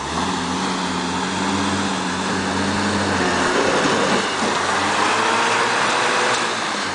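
Classic Land Rover Series 4x4 engine running under load as it climbs out of a muddy trail: steady for about three seconds, then revving up and holding at higher revs.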